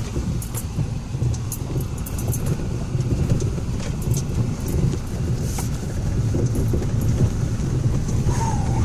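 Ford Raptor pickup crawling over a rough off-road trail, heard from the cab: a steady low rumble of engine and tyres, with scattered clicks and scrapes and a short squeak near the end.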